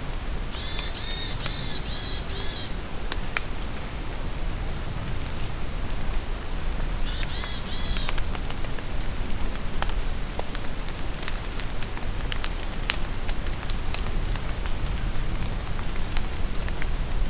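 Steady rain falling in a forest, with scattered drips. A songbird sings a quick run of high, repeated chirping notes about half a second in for some two seconds, and again around seven seconds in.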